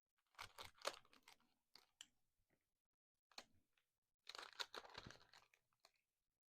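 A trading card pack's wrapper being torn open and crinkled, in two crackly bursts with a few small ticks between them.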